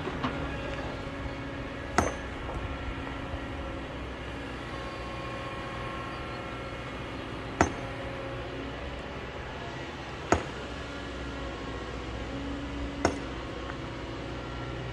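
Hammer blows ringing on stone, four sharp metallic clinks at uneven gaps of a few seconds, over the steady running of a Kobelco excavator's diesel engine.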